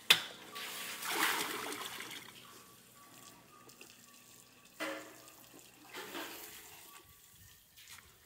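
Water splashing and sloshing in a cement trough where a water buffalo is drinking, in a few short bursts. A sharp knock comes just at the start, the loudest sound.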